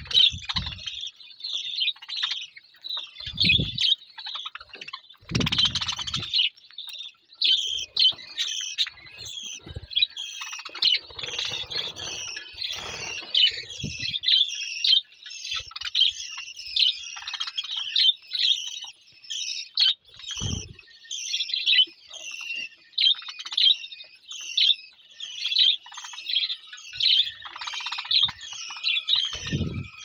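A flock of budgerigars chirping and chattering nonstop, many short high chirps a second overlapping. A few low thumps come now and then.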